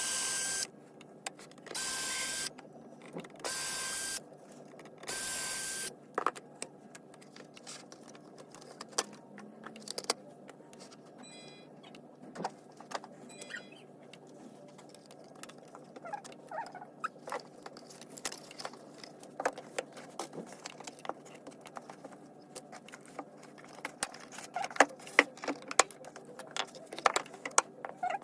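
A small motor whirs in four short bursts of under a second each, then scattered light clicks and taps of small parts being handled during console disassembly.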